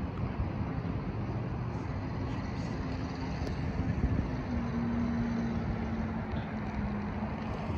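Steady low outdoor rumble of distant road traffic and wind on the microphone, with a faint steady hum underneath.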